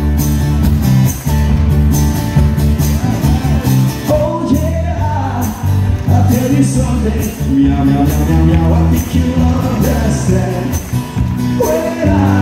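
Live band playing a song on acoustic guitar, electric bass and drums, with steady cymbal strokes. A man starts singing about three seconds in.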